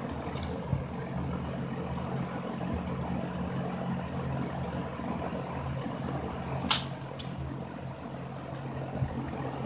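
Metal tools clinking on a brass compression union on an AC refrigerant line as it is tightened with adjustable wrenches, with one sharp click about two-thirds of the way through and fainter ticks. Under it runs a steady low mechanical hum.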